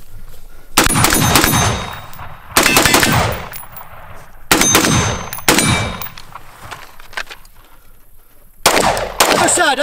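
About six gunshots at uneven gaps, several of them followed by the ring of struck steel plate targets.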